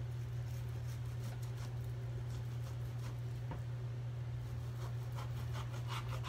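Knife slicing through raw pork belly on a plastic cutting board: a string of short cutting and scraping sounds, coming thicker near the end. A steady low hum runs under it.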